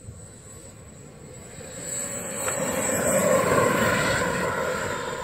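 Radio-controlled model de Havilland Vampire jet rolling along the runway past the microphone: its high whine and rush of air swell to a peak about three and a half seconds in, then begin to fade.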